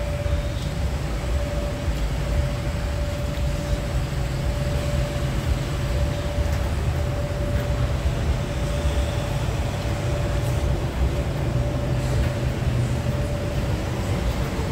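Steady low rumble of street traffic, with a constant humming tone over it.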